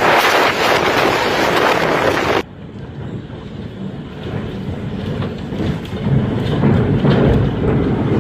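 Hurricane-force wind buffeting the microphone as a loud hiss and rumble that cuts off abruptly about two and a half seconds in. It is followed by a quieter, deeper rumble of storm wind that builds again near the end.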